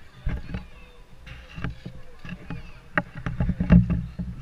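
Low wind rumble and knocks on the camera's microphone, loudest about three to four seconds in, with faint voices of spectators behind.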